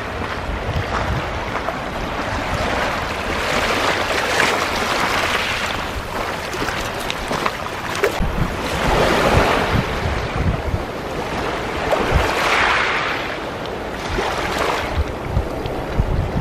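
Small sea waves lapping and washing onto a pebble beach, swelling and fading several times, with wind buffeting the microphone.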